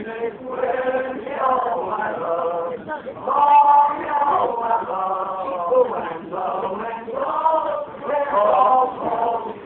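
Male voices singing a chant-like song, with long held notes.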